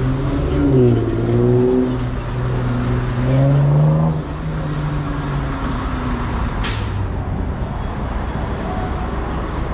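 Street traffic: a motor vehicle's engine accelerating, its pitch rising over the first four seconds and fading by about six seconds, over steady road noise. A brief sharp hiss about seven seconds in.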